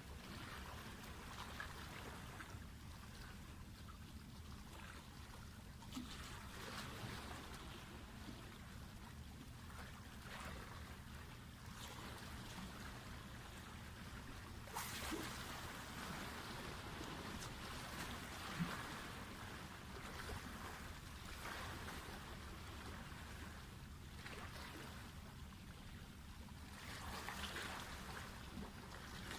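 Faint water lapping and splashing against a rocky breakwater, swelling and easing every few seconds over a steady low rumble, with a few small clicks.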